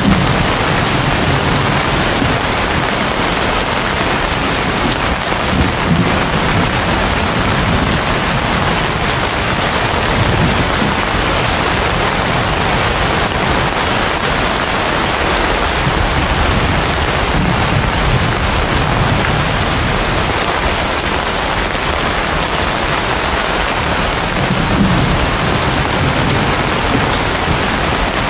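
Heavy rain falling steadily on banana leaves and palm fronds, a dense even hiss. Several low rumbles come and go underneath it.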